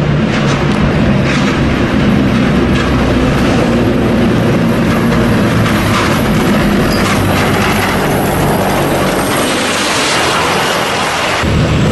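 T-80BV main battle tanks driving past: the steady rushing run of their gas-turbine engines mixed with the rattling clatter of steel tracks. The sound changes abruptly near the end.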